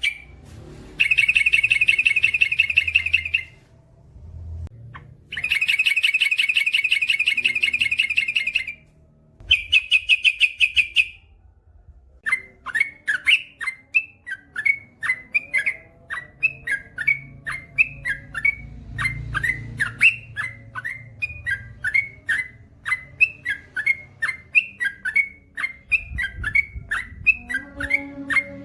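Yellow-vented bulbul (trucukan) calling: two long, fast rattling trills of about three seconds each, then a shorter one. After that comes a long run of short repeated chirps, about two a second.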